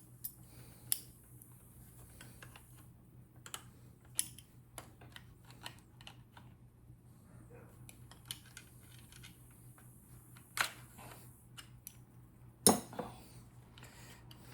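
Pliers and tools clicking and tapping against the parts of a Daisy BB gun being taken apart, in scattered irregular clicks with one sharper knock near the end. The spring is hung up and won't come free.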